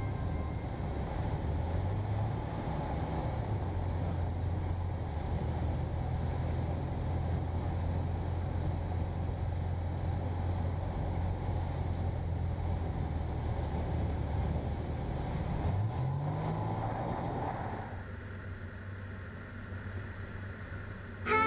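Aerodreams Land Africa ultralight's piston engine and propeller running steadily, with airflow noise, heard inside the cockpit. About three quarters of the way through, the engine note rises. The sound then drops to a quieter level.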